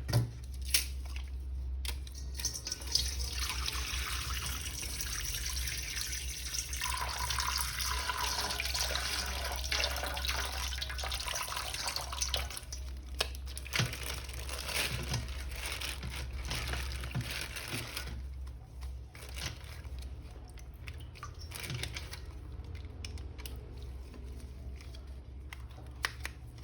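Water running and splashing, as from a tap over a plastic toy being washed, from about two seconds in until about eighteen seconds, with scattered clicks and knocks of handling. It then gives way to quieter handling noise.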